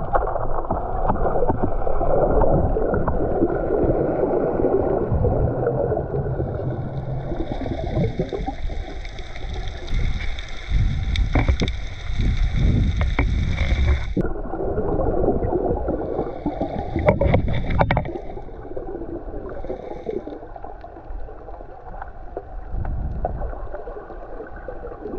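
Underwater recording from a snorkeler's camera: muffled rushing water noise against the camera housing, with a few sharp knocks. A steady high whine joins in about seven seconds in and cuts off suddenly about halfway through.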